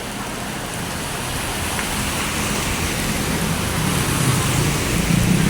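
Heavy rain falling steadily, with a low engine hum rising over the last second or two as a vehicle comes closer.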